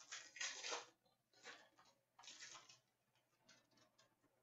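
Faint rustling of hockey trading cards being handled and slid across one another: three short rustles in about three seconds.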